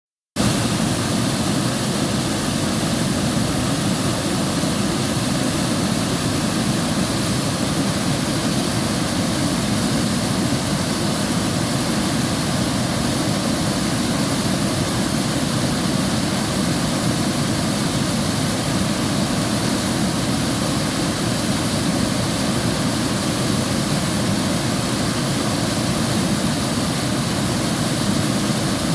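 River water flowing, a loud, steady rush of water that does not let up.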